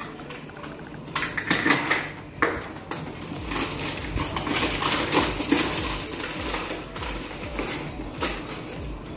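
A measuring cup clinking and knocking a few times, then sugar being scooped from a bag and poured: a steady grainy rustle with small ticks.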